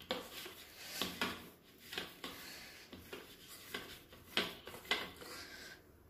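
Hands kneading soft gulab jamun dough in a stainless steel bowl: faint, irregular squishing and rubbing strokes, about one or two a second, with light scrapes against the steel.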